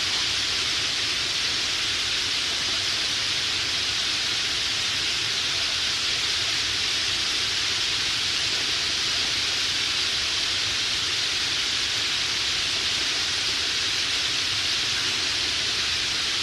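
The din of a huge roost of red-billed queleas: countless birds calling at once, merging into a steady, high hiss in which no single call stands out.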